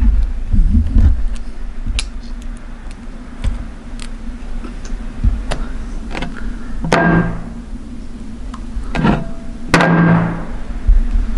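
Squelching and sticky smacking as a hand squeezes, lifts and pulls apart a soft mass of ground jelly candy on a plate, with two louder squelches a few seconds apart. A steady low hum runs underneath.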